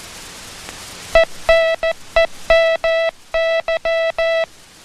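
Hand-keyed Morse code tone: a steady buzzy beep sent as a string of short dits and long das, starting about a second in. The same dits and das as the word before, sent with different spacing so they spell a different word.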